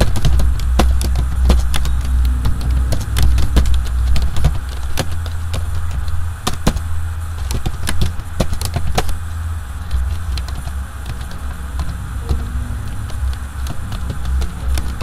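Computer keyboard typing: irregular keystroke clicks over a steady low hum.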